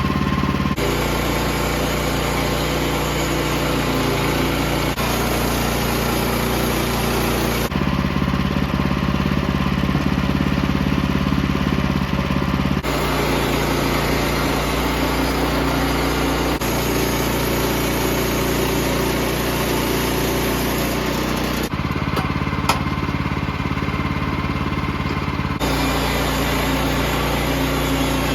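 Small gasoline engine of a portable band sawmill running steadily, its tone changing abruptly several times as one clip cuts to the next, with a single sharp click about two-thirds of the way through.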